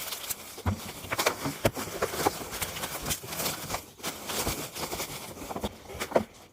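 Irregular rustling, scraping and many light knocks and clicks of yard clean-up work.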